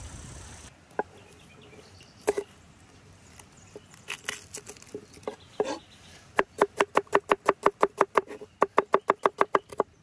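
Knife chopping on a cutting board: a few scattered taps, then a fast, even run of about seven chops a second, broken by a short pause near the end.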